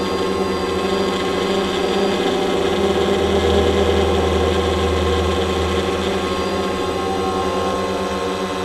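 Quadcopter drone's electric motors and propellers humming steadily as it hovers, picked up by its own onboard camera, with a slight swell in low rumble for a couple of seconds mid-way.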